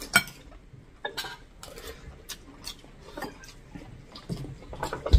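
Metal spoons clinking and scraping on ceramic plates and bowls as people eat, a string of short, irregular clinks, the sharpest just after the start and another near the end.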